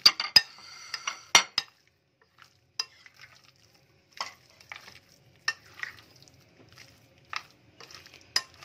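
Metal spoon stirring fish pieces through a thick spice-and-cornflour marinade in a glass bowl, clinking against the glass. There is a quick run of clinks in the first second and a half, then single clinks every second or so.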